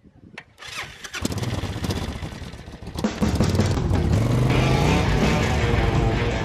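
A motor vehicle engine starting up and revving. It builds from about a second in and gets much louder about three seconds in, with a rising note as it revs.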